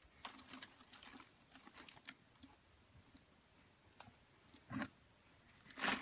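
Kittens rummaging in a bin lined with a plastic bag and full of crinkly wrappers and packaging: faint, irregular rustling and crinkling of plastic, in scattered bursts with the loudest near the end.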